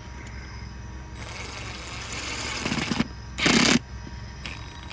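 Power impact wrench tightening a bolt: a stretch of lighter buzzing spin-down for about two seconds, then a short loud burst of hammering a little past halfway.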